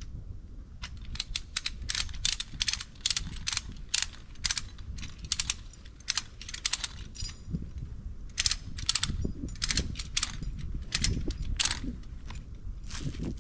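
Metal rigging gear clicking and clinking in irregular runs of sharp strikes, some with a brief metallic ring, as it is handled and tightened around a tree.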